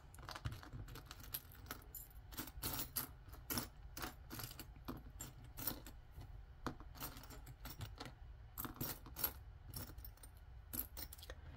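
Thin gold-tone metal rings clinking and jingling as they are picked up and gathered in the hand and set down on a tabletop: many small, light clicks at an uneven pace.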